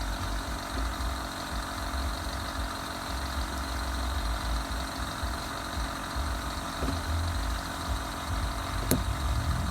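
Car engine idling steadily with a low hum, and one sharp click near the end.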